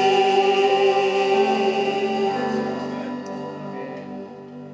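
Voices and instruments holding the long final chord of a worship hymn, steady at first and then fading away over the last couple of seconds.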